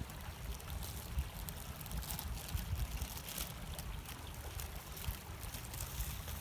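Wind buffeting the microphone: a steady low rumble, with a few faint light taps.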